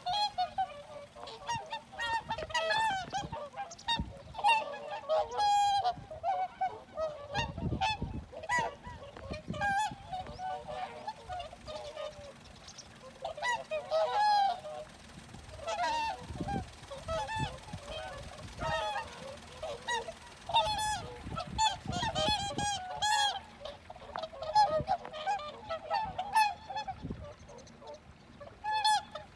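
A flock of swans calling: many honking calls overlapping without a break.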